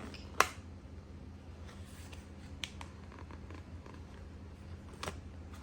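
A few sharp clicks and taps of packaging being handled: a loud one about half a second in, then fainter ones midway and near the end, over a steady low hum.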